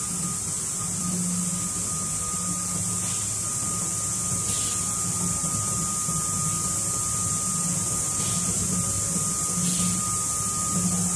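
Automatic spray-coating line for window blind slats running: a steady mechanical hum of its motors and blowers with a thin high tone above it and an even hiss, and a few faint scrapes as slats ride the conveyor.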